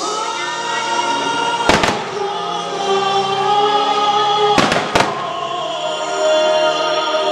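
Fireworks bursting over a loud choral music soundtrack, with two clusters of sharp bangs, about two seconds apart and again around five seconds in, cutting through the sustained music.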